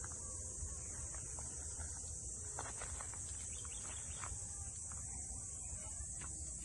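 Steady high-pitched chorus of insects, with a few faint clicks a little past the middle.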